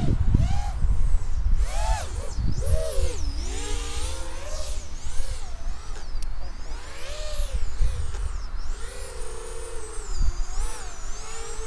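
Brushless motors and two-blade 4045 props of a 4-inch FPV quadcopter (Armattan Oomph 1407 3850kv motors) whining, the pitch sliding up and down over and over with throttle changes, over a low rumble.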